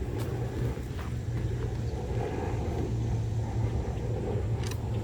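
Steady low rumble of distant road traffic, with one short click near the end.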